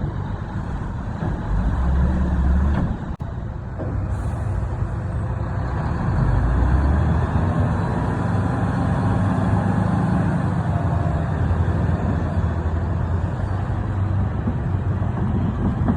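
Heavy diesel engine running and working hard, its low rumble swelling about two seconds in and again from about six seconds on, with a brief dropout near three seconds.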